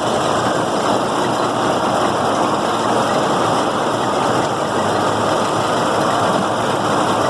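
New Idea pull-type corn picker running empty off a John Deere 6400 tractor's PTO, a steady, noisy mechanical clatter over the tractor engine, clearing the leftover cobs out of the machine.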